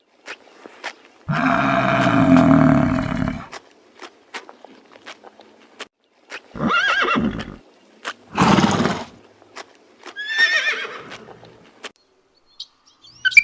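An animal calling four times: one long, loud call near the start, then three shorter calls that slide in pitch, the last falling. Short sharp clicks are scattered between the calls.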